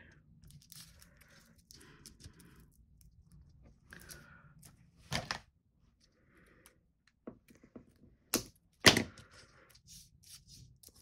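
Paper crafting handling noise: soft rustling of card and foam-pad sheets being worked by hand on a cutting mat, with a few sharp clicks and taps, the loudest about nine seconds in.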